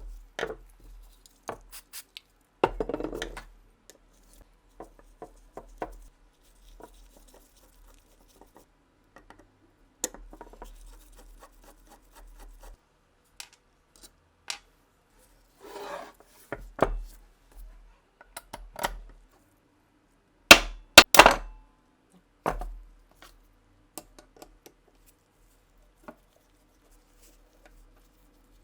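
Scattered clicks, clinks and knocks of small metal parts and tools being handled while working on an old Nagant revolver, with a few short scraping rustles; the loudest is a close pair of knocks about two-thirds of the way through.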